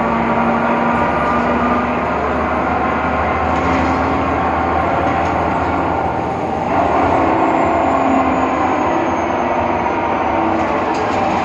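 Inside a moving BredaMenariniBus Avancity Plus city bus: steady drivetrain running noise with tones that drift up and down in pitch. The uploader attributes this strange sound to the differential.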